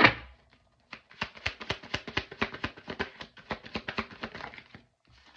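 A tarot deck being shuffled by hand: a loud swish at the start, then about four seconds of quick, even card slaps, roughly six or seven a second.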